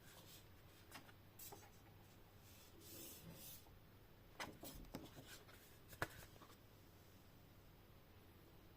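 Faint handling noises from unboxing a 4K Blu-ray steelbook: light rubbing and rustling with a few small clicks, the sharpest about six seconds in.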